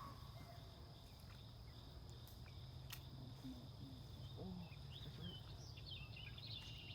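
Faint natural ambience: a steady, high-pitched insect drone, joined by a few short bird chirps in the second half.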